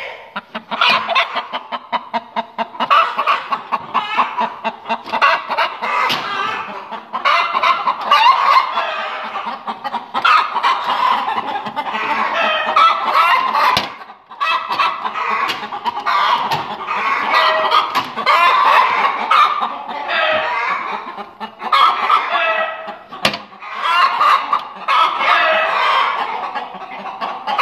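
Laying hens clucking steadily, in runs of repeated calls a few seconds long. Two sharp clicks come through, one about halfway through and one some nine seconds later.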